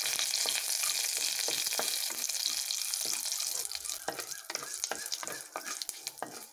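Curry leaves, mustard seeds and fenugreek sizzling in hot oil in a kadai, stirred by a wooden spatula that clicks and scrapes against the pan. The sizzle dies down about four seconds in, leaving mostly the spatula's clicks and scrapes.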